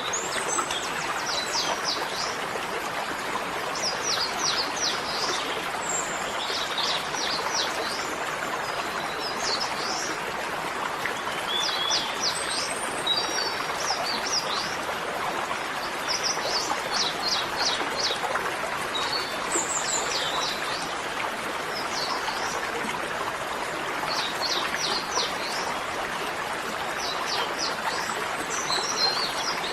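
Small birds chirping in quick runs of short, high notes that come every few seconds, over a steady rushing sound of running water.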